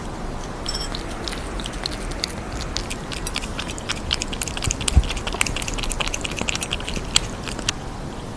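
Cat lapping milky liquid from a metal spoon: a rapid run of wet licking clicks that starts about a second in and stops shortly before the end.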